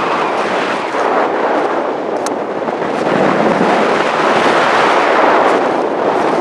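Strong mountain wind buffeting the camera microphone, a steady rough rushing that swells and eases in gusts.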